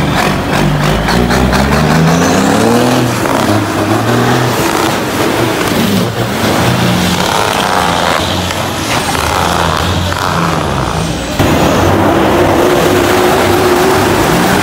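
Heavy diesel trucks pulling away one after another, engines revving up and dropping back as they work through the gears. The sound cuts abruptly a little past two-thirds of the way through to a steadier, louder engine close by, whose pitch rises near the end as it accelerates.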